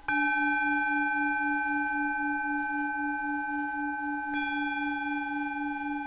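Synthesized planetary-frequency tones named for Mars and the synodic moon: a low tone pulsing about four times a second under several steady higher pure tones. The higher tones come in abruptly right at the start, and another high tone joins about four seconds in.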